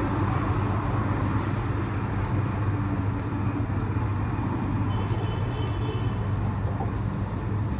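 Steady low rumble of street traffic, with a faint high beeping about five seconds in.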